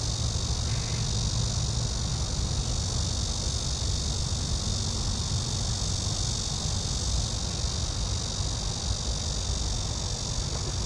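Steady high-pitched chorus of insects, unbroken and even, over a low steady rumble.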